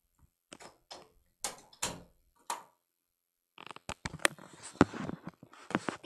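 Footsteps, a knock about every half second, then after a short pause a quick run of clicks and knocks as a door and a light switch are worked.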